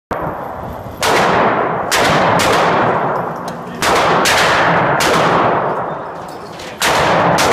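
Rifle shots fired singly at an uneven pace, about nine in all, each loud crack followed by a long echoing decay in the enclosed indoor range.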